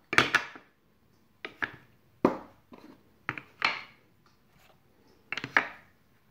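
Purpleheart wooden dice tower pieces being handled: a string of separate wooden knocks, each trailing into a short scrape, about a second apart, as the tray and parts are slid and set into the box.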